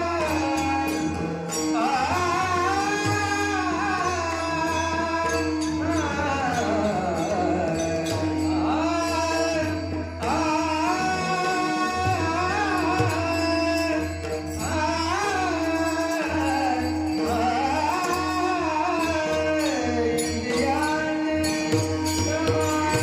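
A male singer's slow, ornamented vocal in raga Bhairavi, with gliding phrases and held notes over a steady drone accompaniment.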